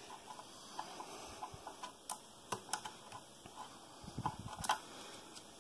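Faint, irregular small metallic clicks and ticks of a screwdriver backing a set screw out of the hook assembly's rod in a sewing machine, with a few sharper clicks about two seconds in and again near the end.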